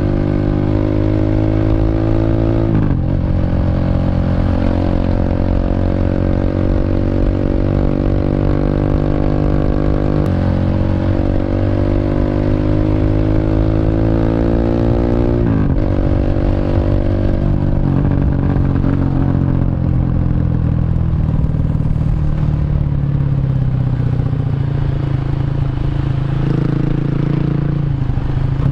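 Bored-up 150cc Honda Revo motorcycle engine through a CLD C7 aftermarket exhaust, pulling steadily up through the revs under acceleration. The pitch drops sharply as it changes gear about three seconds in and again about sixteen seconds in, then it runs lower and steadier.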